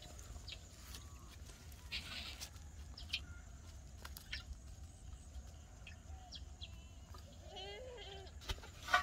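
Quiet open-air ambience with scattered short bird chirps over a steady low rumble, and a goat bleating in a wavering call near the end. A sharp knock comes just before the end and is the loudest sound.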